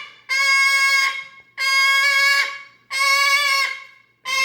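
Cockatoo giving a run of four long, level-pitched honking calls, each about a second long and about 1.3 seconds apart, the sound its owners call clearing its throat.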